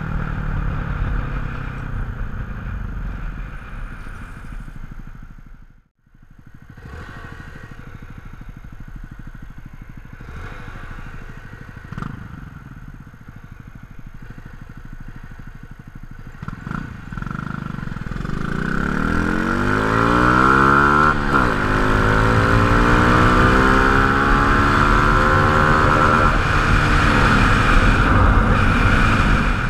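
Honda Grom 125 cc single-cylinder motorcycles: the engine note falls as the bikes slow, cuts out briefly about six seconds in, then idles with a short blip of throttle around twelve seconds. From about eighteen seconds the engines rev up hard and pull away, the pitch climbing and dipping as they shift up through the gears.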